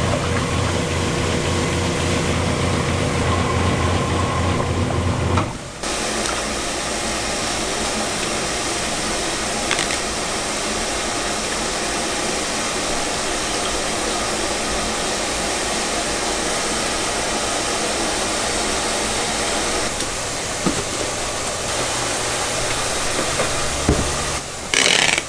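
Electric garaetteok (rice-cake) extruder running, a steady pulsing motor hum as it pushes out ropes of rice cake. About five seconds in the sound cuts to a steady, hissier machine noise that runs on, with a brief plastic rustle near the end.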